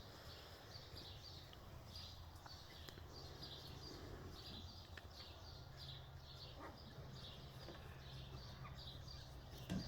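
Faint, repeated high chirps of a small bird, roughly one a second, over a low steady hum.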